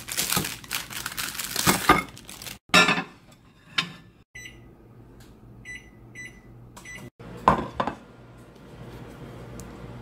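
Plastic burrito wrapper crinkling, then about five short high beeps from a microwave oven's keypad as its buttons are pressed, followed by a single knock.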